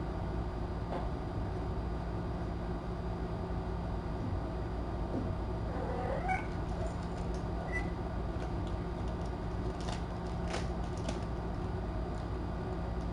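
A cat mews once, short and rising, about six seconds in, and gives a brief high chirp-like call a couple of seconds later. A few light clicks follow near the end, over a steady hiss and hum.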